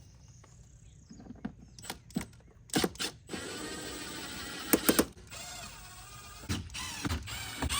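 Cordless drill with a T27 Torx bit backing out screws: a motor whine in short runs, with a few sharp clicks, and a whine rising in pitch near the end.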